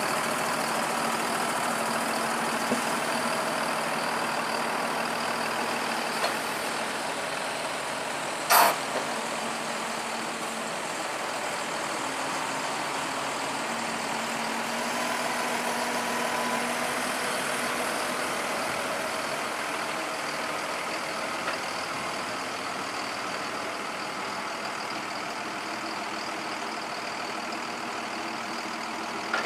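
An engine running steadily. One short, sharp burst of noise about eight and a half seconds in is the loudest moment.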